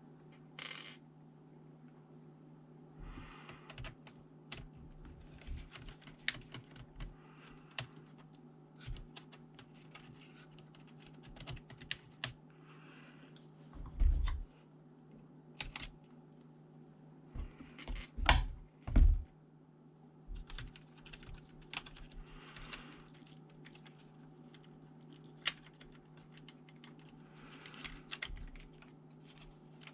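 Irregular small plastic clicks and taps from handling a ThinkPad T400 laptop and its parts, with a few heavier knocks, one about 14 seconds in and two around 18 seconds in. A steady low hum runs underneath.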